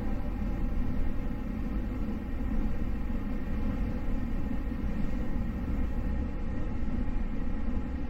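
Steady low rumble of a train running, heard from inside the passenger carriage.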